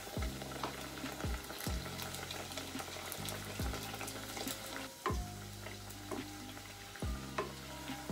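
Donut dough deep-frying in a saucepan of hot oil, a steady sizzle and crackle of bubbling oil, under soft background music with a slow bass beat.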